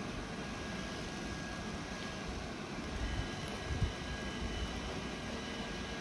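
Steady background hum of room noise with a faint high whine running through it. A few faint clicks of small plastic bricks being handled, and a soft low thump a little under four seconds in.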